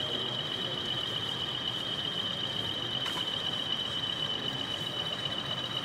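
OO gauge model train running on the layout: a steady high-pitched whine over a low background murmur, with a faint click about three seconds in.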